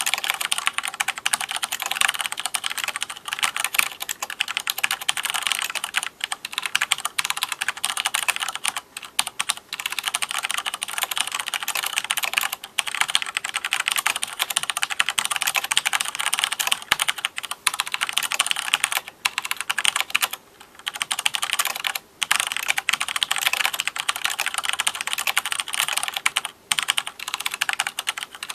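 Continuous fast typing on an Owltech mechanical keyboard with Cherry MX Black linear switches: a dense run of key clacks, with a few brief pauses.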